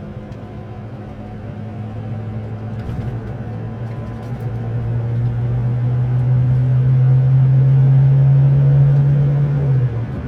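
A car engine humming steadily and growing louder over several seconds as it approaches, then dropping away sharply near the end as it passes.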